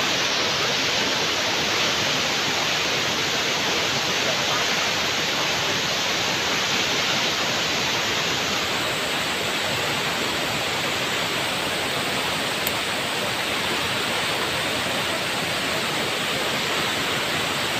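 Steady rushing of a waterfall: an even hiss of falling water with no rise or fall.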